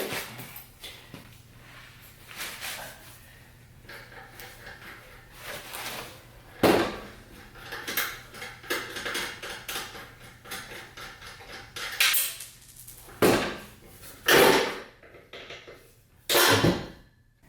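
Scattered clunks and knocks of a steel exhaust pipe and its threaded-rod hanger being worked into place under the truck, five or six sharp ones in the second half, over a faint steady hum.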